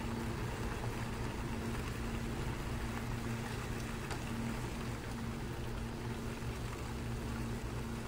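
A steady low hum of running machinery, holding one constant low pitch.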